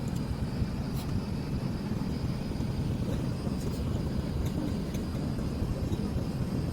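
Airbus A380 jet engines heard as a low, steady rumble, with a faint high whine above it.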